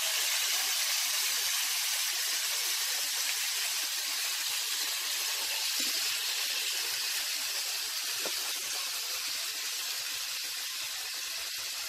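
Raw chicken pieces sizzling in hot butter and browned garlic in a stainless steel frying pan, a steady hiss that eases slightly toward the end.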